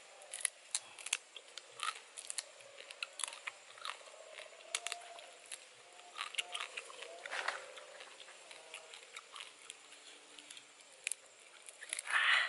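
A person biting and chewing cooked quail, a run of many short, sharp crunches with a louder, longer crunch near the end.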